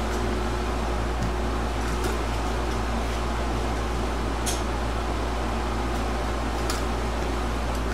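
Steady mechanical hum and hiss of room noise, with a few faint short clicks, one of them as the ceiling light comes on.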